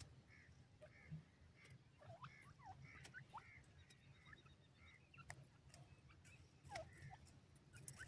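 Grey francolin giving soft, faint calls: short chirping notes every half second or so, mixed with a few quick downward-swooping notes. A few sharp ticks and a low steady rumble lie underneath.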